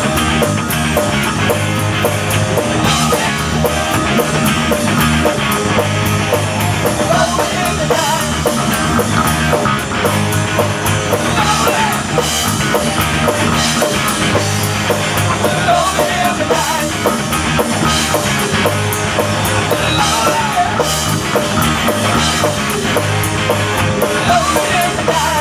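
Live rock band playing an instrumental passage with no singing: a drum kit keeps a steady beat under electric guitar.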